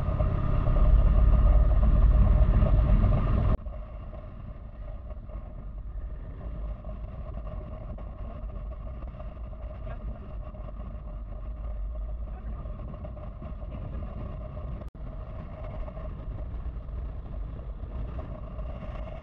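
Motorcycle riding at road speed: heavy wind rumble on the microphone over the engine for the first few seconds, then an abrupt drop to a quieter, steady engine drone.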